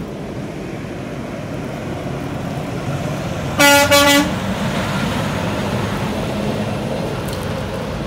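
A semi truck's horn sounds two short blasts back to back about midway, over the steady engine rumble of the tractor-trailer passing close by. The horn is the driver's answer to the arm-pump gesture asking truckers to honk.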